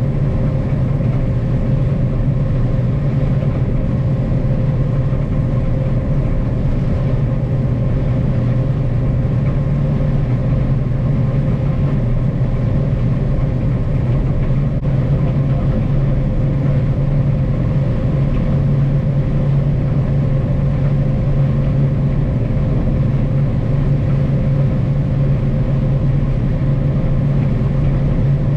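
Combine harvester running steadily under harvest: a constant low engine drone with a faint steady higher hum over it.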